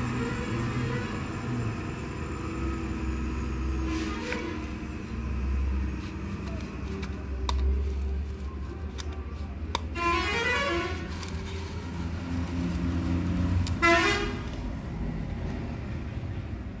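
Road traffic: a steady low rumble of passing vehicles, with horns honking, including two short rising blasts, one past the middle and one near the end.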